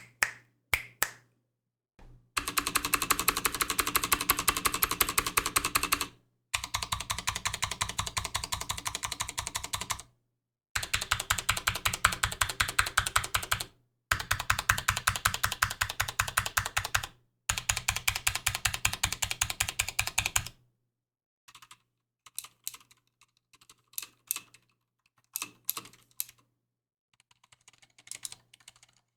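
Leopold FC750R PD mechanical keyboard with clicky Cherry MX Blue switches, its stabilized long keys struck in five fast rattling runs of a few seconds each. Over the last third the presses thin out to scattered single strokes and short clusters.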